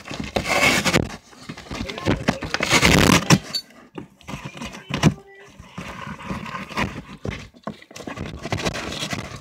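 A furry pet rummaging in a box of paper stuffing right against the microphone: loud, irregular rustling, crumpling and scraping, with clicks and short pauses.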